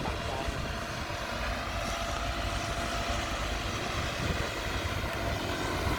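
Diesel engine of heavy earthmoving machinery running steadily, a continuous drone.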